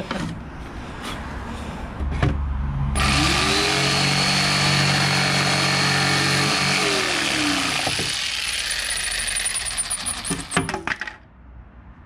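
Corded jigsaw cutting through a plywood sheet with a loud, steady buzz. It starts two to three seconds in and stops about a second before the end.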